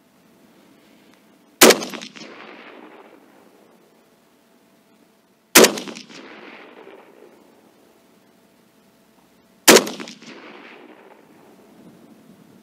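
Three rifle shots from a Saiga-308 semi-automatic carbine firing .308 Winchester, about four seconds apart, each a sharp crack followed by an echo that dies away over a second or two.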